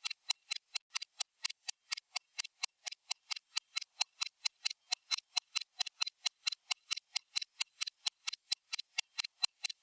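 Stopwatch ticking sound effect: fast, sharp, even ticks at about four a second.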